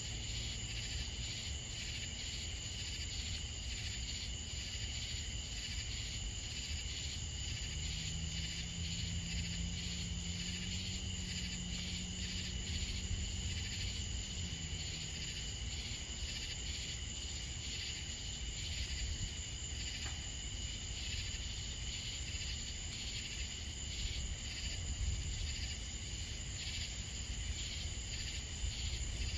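Crickets and other night insects chirping in a steady, pulsing chorus, with a low rumble underneath. A faint low drone comes and goes from about eight to fifteen seconds in.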